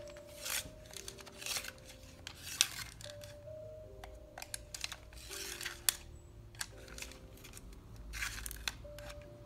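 A 4B pencil being sharpened in a manual pencil sharpener: short scraping strokes, roughly one a second, as the pencil is turned in the blade. Background music plays underneath.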